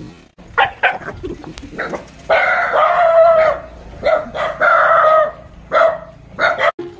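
A rooster crowing twice, each crow about a second long, with shorter calls before and after.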